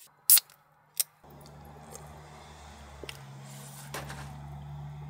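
A sharp clack about a third of a second in and a softer knock a moment later as a drink can is handled and set down, then a steady low hum with a faint hiss.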